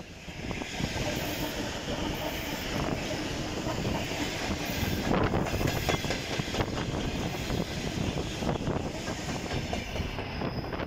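ED4M electric multiple unit running past, its wheels clattering over the rail joints in a steady run of clicks.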